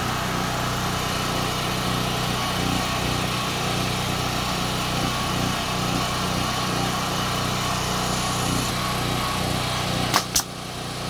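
A small engine running steadily, then near the end two sharp shots from a Campbell air nail gun driving nails into wood, a fraction of a second apart.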